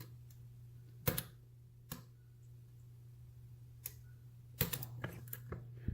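A lock pick working a 50 mm Steele brass-bodied padlock: a few sharp metallic clicks a second or so apart, then a quicker run of small clicks and taps near the end.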